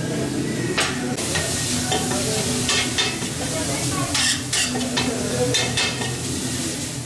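Chopped meat for tantuni sizzling on a wide, shallow steel pan while a spatula stirs it, scraping and clicking against the metal. The steady sizzle sets in about a second in, with many short scrapes over it.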